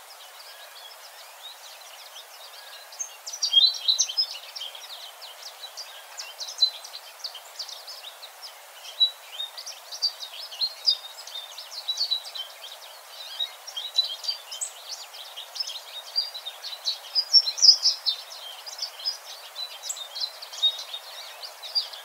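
American goldfinch twittering: a long run of quick, high chirping notes that grows busier about three seconds in, over a faint steady hiss.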